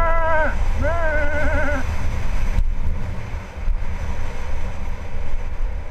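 Wind buffeting a helmet camera's microphone while a mountain bike's tyres roll down a gravel fire road, a steady low rumble. Two short pitched wavering calls, from a voice or an animal, come in the first two seconds.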